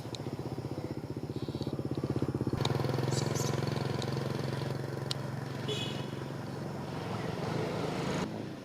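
A small engine running at a steady idle with a fast, even pulse. It grows louder about two and a half seconds in and cuts off abruptly near the end.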